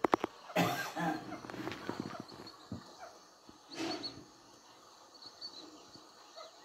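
Baby crocodiles giving short calls in scattered bursts. The loudest burst comes about half a second in and another near four seconds, with faint high chirps in between.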